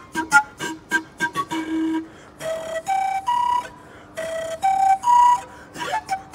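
Panpipes playing a melody: a quick run of short staccato notes, then a three-note rising phrase of held notes played twice, then quick short notes again near the end.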